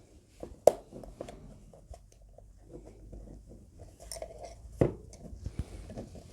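A portable SSD's casing being handled on a hard surface: light clicks and rustling, with two sharp knocks, one just under a second in and another near five seconds.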